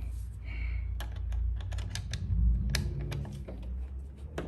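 Irregular light clicks and ticks of a screw and screwdriver as a smart wall switch is screwed into place, over a low steady hum that fades near the end.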